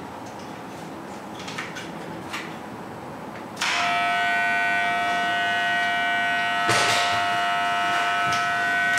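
Corded electric hair clippers switched on about a third of the way in, then running with a loud, steady buzz. Before that, a few faint handling clicks, and a short click comes partway through the buzzing.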